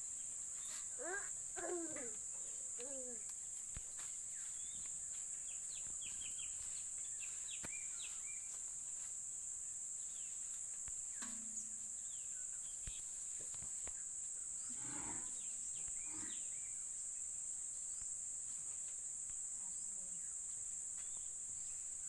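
Steady high-pitched chirring of insects, with a few short chirps and calls over it, clustered near the start and around the middle.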